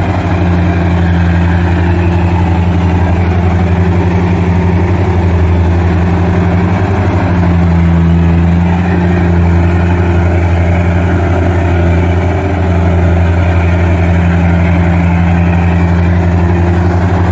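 Rice combine harvester's engine running steadily at working speed as the crawler machine churns through deep mud. It is a loud, constant low drone, with slight shifts in pitch now and then.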